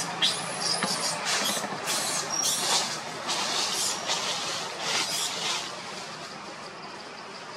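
Leaves and branches rustling and shaking in irregular bursts as monkeys climb through the tree canopy, easing off after about five seconds.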